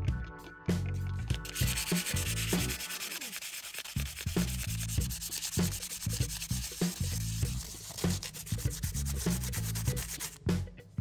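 Fine P600 sandpaper rubbed back and forth by hand over a hardened sand, baking soda and glue filler patch on a plastic hubcap: a dense, rapid scratching that starts about a second and a half in and stops near the end.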